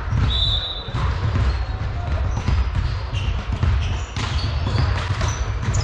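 Indoor volleyball play in a sports hall: repeated ball thuds and bounces, short high squeaks, and players' voices and calls echoing.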